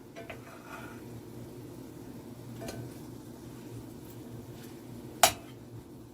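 A metal utensil knocks lightly on cookware a few times, then gives one sharp clink about five seconds in, over a steady low hum.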